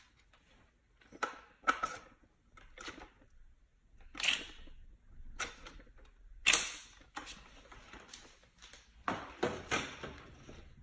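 Metal tube legs and plastic sockets of a baby cradle swing clicking and knocking as they are fitted together, a scattering of sharp knocks at irregular intervals with the loudest a little past the middle.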